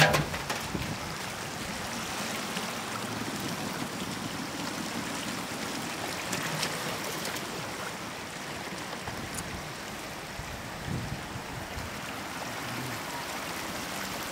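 Shallow floodwater running steadily over a road surface, with a few brief clicks.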